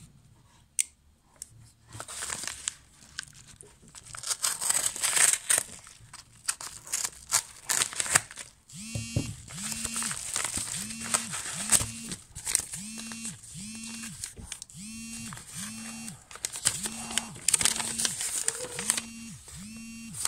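Paper padded mailer being slit open with a folding knife and handled, crinkling and tearing in irregular rustles. From about nine seconds in, a separate pitched tone pulses steadily about one and a half times a second behind it.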